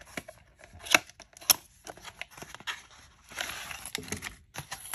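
A small cardboard box being opened, with two sharp clicks of the flap about half a second apart. Then a clear plastic zip-lock bag holding a folding knife is drawn out and crinkles for about a second.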